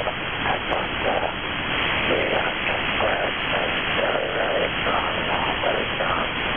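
6-meter SSB receiver audio: steady band hiss with a distorted, unintelligible voice signal coming and going through it, the rough sound of a station heard by aurora propagation.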